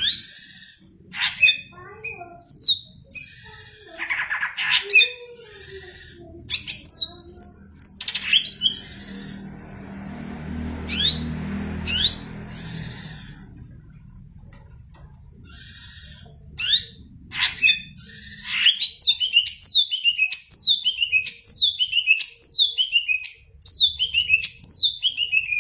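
Cucak ijo (green leafbird) singing a varied song of harsh buzzy notes and sharp high chirps, ending in a quick run of falling whistled sweeps, about two a second.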